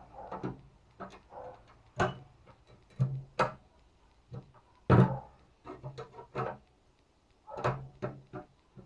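Hand-forged wrought-iron fireplace crane being swung and folded on a wooden table: irregular metal clanks and knocks as its iron arms and pivots move, some with a short ring.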